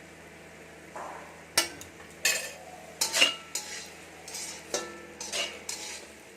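A spatula scraping and stirring chicken in a pan during kosha, the slow stir-frying of chicken in spices until dry. It is a quick, uneven run of about a dozen strokes starting about a second in.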